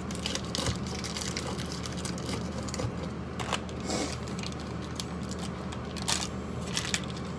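Crinkling and crackling of a foil pouch of nebulizer vials being handled and pulled open, in short irregular crackles over a steady low hum.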